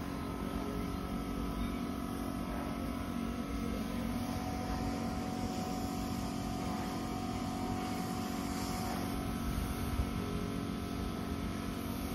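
An engine running steadily at a constant speed.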